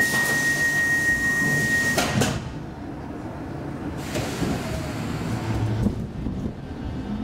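Sliding doors of a Stockholm Metro C15 subway car closing. A steady high tone and a hiss of air stop as the doors thud shut about two seconds in. A second hiss of air comes about four seconds in, and a few clicks near the end.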